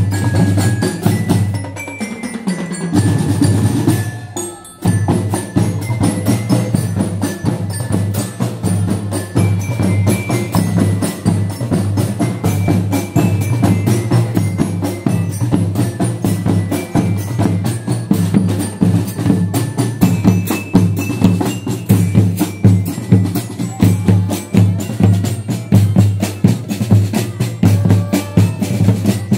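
Marching band percussion: bass drums beating a steady rhythm under a quick melody on mallet keyboards such as bell lyres or marching xylophones, with a brief break about four seconds in.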